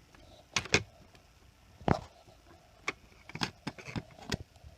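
Laptop parts being handled during disassembly: about eight sharp clicks and knocks of plastic and metal pieces at irregular intervals, the loudest in the first two seconds.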